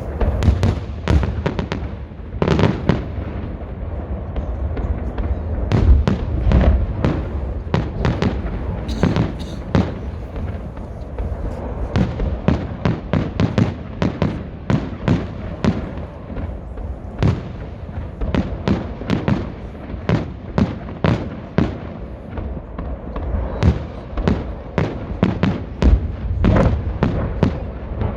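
Festive fireworks salute: a dense, irregular run of sharp pops and crackles from bursting shells, often several a second, over a continuous low rumble, with heavier booms about a second in, around six seconds in and near the end.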